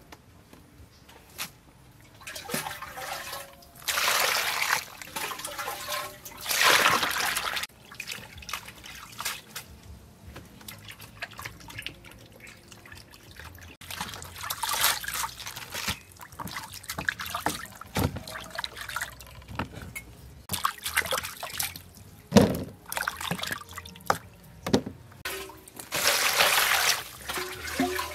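Water splashing and trickling in a plastic basin as vegetables are washed by hand, in irregular bursts of a second or two, with a few short knocks in between.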